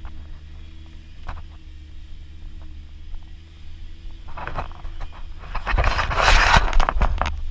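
Off-road vehicle's engine running low and steady, heard from inside the cab while driving a rough dirt trail. From about four seconds in, loud scraping and rattling rises over it and is the loudest sound near the end.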